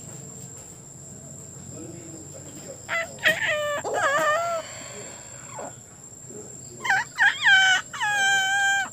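Rooster crowing twice, the first crow about three seconds in, the second near the end finishing in a long held note.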